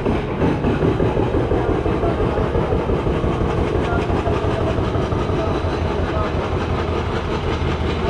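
Outdoor ambience of a busy pedestrian street: a steady, dense noise heavy in the low end that flickers constantly, with people walking by.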